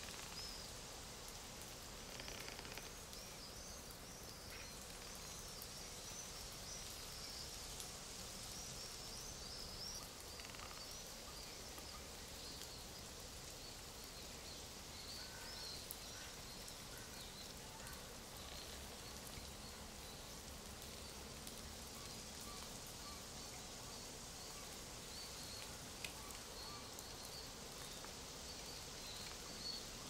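Forest ambience: many small songbirds chirping and twittering, busiest in the first ten seconds and sparser after, over a soft steady hiss of rustling leaves.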